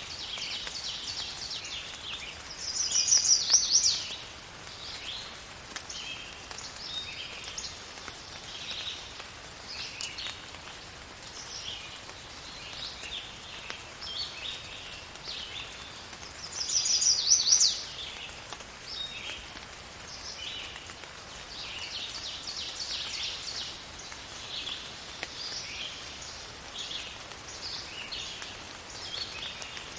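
Songbirds chirping and singing in short repeated phrases, with two louder rapid trills, one about three seconds in and another about seventeen seconds in, over a faint steady hiss of rain.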